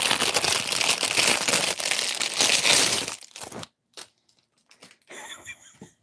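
Clear plastic wrapping crinkling as it is pulled off a small tin by hand. Dense crackling for about three and a half seconds, then a few faint rustles and a short crinkle near the end.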